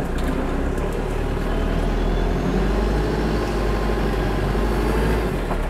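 Toyota 15B-T four-cylinder turbo-diesel engine in an FJ40 Land Cruiser running at low revs with a steady low rumble, its pitch drifting gently up and down and easing off near the end.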